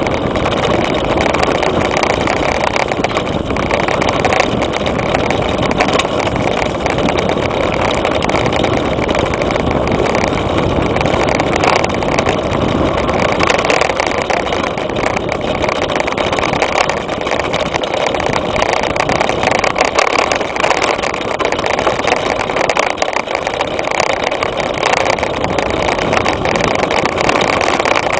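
Wind rushing over the microphone of a camera mounted by a mountain bike's front suspension fork while riding a bumpy dirt trail, with the bike rattling and knocking over the ground. A steady loud rush with frequent short knocks.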